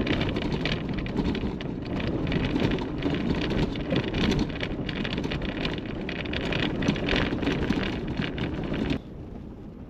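Rain falling on a moving car, a dense irregular crackle over steady road and engine noise heard from inside. The noise drops suddenly near the end to a quieter, smoother driving hum.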